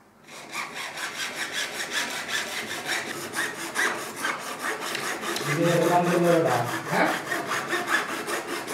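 Hacksaw cutting through a large orange plastic drain pipe, rasping in quick, even back-and-forth strokes that grow louder about halfway through.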